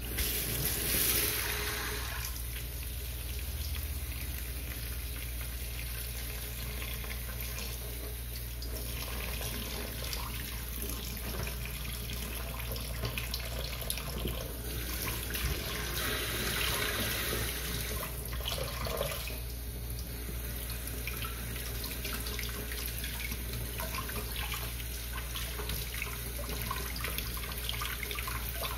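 Kitchen tap running into a stainless steel sink, the stream splashing over hands and filefish fillets being rinsed on a plate, with louder splashing now and then.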